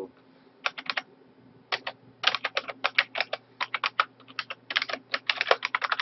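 Typing on a computer keyboard: quick runs of keystrokes with short pauses, starting about half a second in. A faint steady low hum lies underneath.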